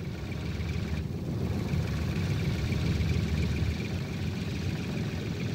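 Small motor vehicle engine running steadily with a low rumble: a motorized trolley towing an aircraft trailer.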